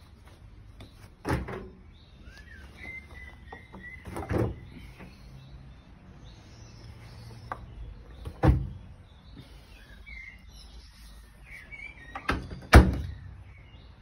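Thumps and knocks of laundry being handled and loaded into a tumble dryer's drum: four louder thumps a few seconds apart, the loudest near the end, with small knocks between. Birds chirp faintly in the background.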